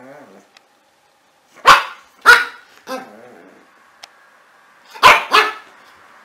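Pug puppy barking in short barks: two loud ones about a second and a half to two seconds in, a softer one just after, then two more in quick succession about five seconds in.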